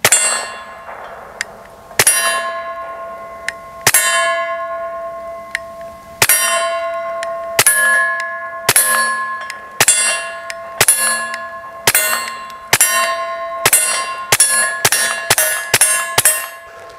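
Suppressed Taurus TX22 .22 LR pistol firing about sixteen shots. After each shot a steel target plate rings with a bell-like tone that fades until the next one. The shots come about two seconds apart at first, then quicken to a rapid string near the end.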